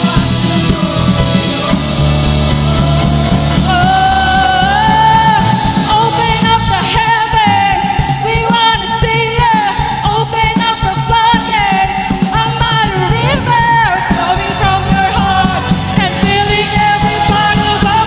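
Live worship band playing a rock-style song, with a full band of bass and drums under a sung melody. The music runs loud and unbroken.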